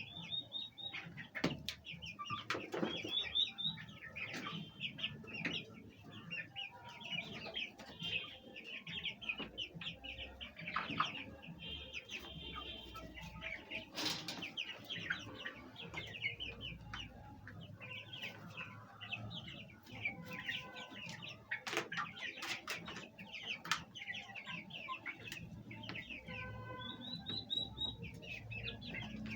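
Domestic hens clucking and chattering over one another, with occasional wing flapping and sharp rustles, and a longer, drawn-out call near the end.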